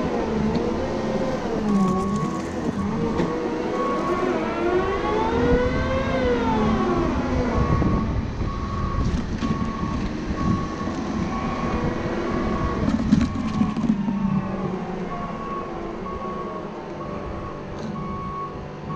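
Cat 926M wheel loader's diesel engine running and revving up and down as it works the snow plow. Its reverse alarm beeps steadily, a little more than once a second, from about two seconds in, and there are a few knocks near the middle.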